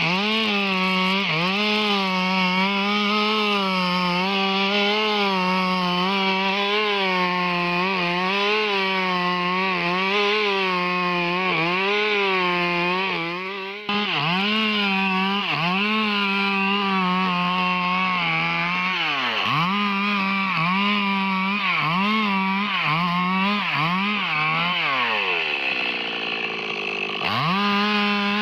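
Stihl MS 382 two-stroke chainsaw cutting wood at high revs, its engine pitch dipping again and again as the chain loads up in the cut. About two-thirds of the way through the dips deepen and the engine falls away toward idle, then revs back up near the end.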